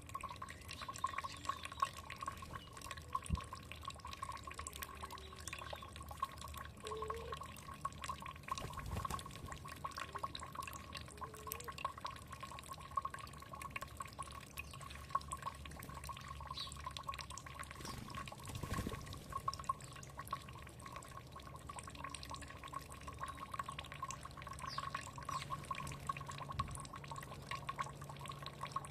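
Water trickling and dripping, a constant patter of small drops, with a steady tone running underneath.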